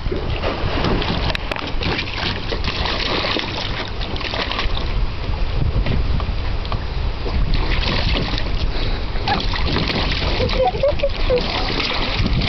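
Water splashing and sloshing in a plastic kiddie pool as a large Newfoundland-mix dog moves about in it, with wind rumbling on the microphone.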